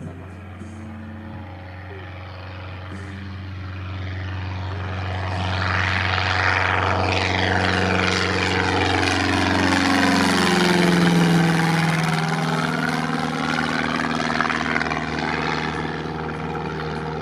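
Reims-Cessna F150M's four-cylinder Continental O-200 engine and propeller at takeoff power as the plane climbs out. The sound grows louder as it approaches, its pitch drops as it passes overhead about ten seconds in, and then it slowly fades.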